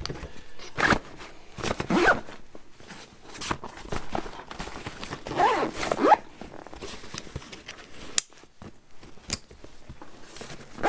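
Zippers on a Maxpedition Pygmy Falcon II Cordura backpack pulled along its pockets in several short strokes, with rustling of the pack's fabric as it is handled. Two light clicks come near the end.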